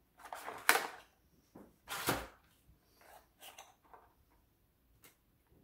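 Cardboard packaging being handled and worked at: rustling, scraping noises in short bursts, with a sharp knock early on the loudest, a second burst about two seconds in, smaller rustles after, and a single click near the end.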